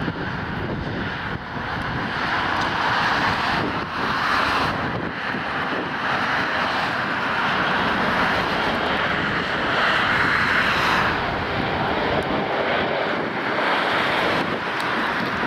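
Airbus A320's CFM56 turbofan engines running loud and steady as the airliner rolls out on the runway after touchdown, growing louder about two seconds in.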